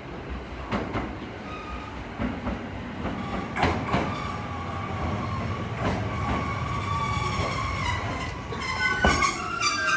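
JR 209-series electric commuter train pulling into a station, its wheels knocking over rail joints every second or two. In the second half its brakes squeal in several steady high tones as it slows.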